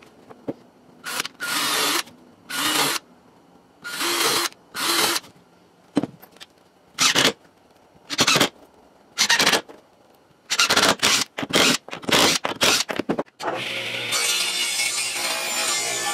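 Cordless impact driver drilling into a pressure-treated wooden post in short bursts of under a second, about a dozen, coming quicker near the end. Background music with guitar takes over in the last couple of seconds.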